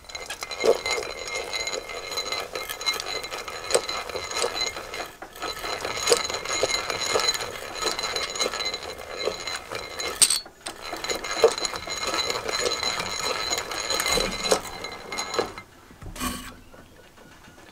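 Restored Leytool Major two-speed egg-beater hand drill cranked steadily, its gears whirring with a clicking rattle as the twist bit bores into wood. It pauses briefly about ten seconds in, runs again, then stops near the end with a short knock.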